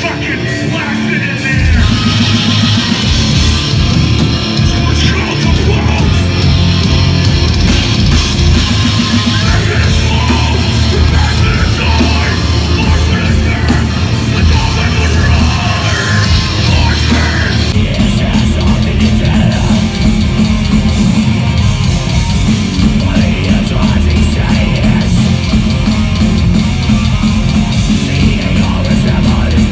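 Heavy metal music with guitars and vocals, getting louder about two seconds in.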